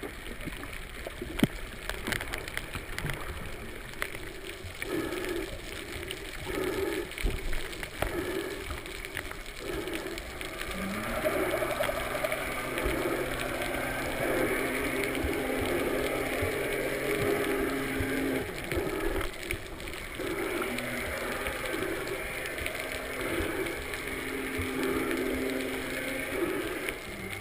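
Underwater water noise on a submerged camera's microphone: gurgling and rushing, with soft pulses about once a second. A low steady hum comes in about eleven seconds in, breaks off for a couple of seconds and comes back.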